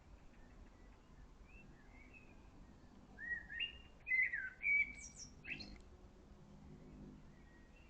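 A songbird singing a short burst of warbling, gliding phrases that starts about three seconds in and stops about three seconds later, over faint forest background noise.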